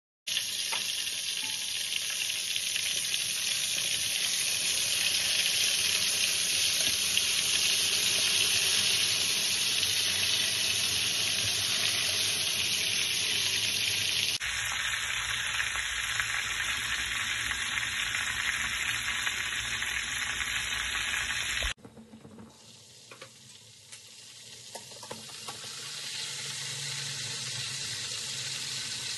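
Pieces of salt cod frying in hot oil in a pan, a steady loud sizzle. It drops abruptly to a quieter sizzle about three-quarters of the way through, then builds again, with a few light taps near the end.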